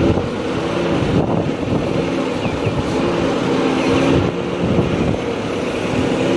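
KATO hydraulic excavator's diesel engine running under working load as the boom swings and the bucket digs and dumps mud, heard close from beside the open cab. The engine and hydraulic note rises and falls as the controls are worked.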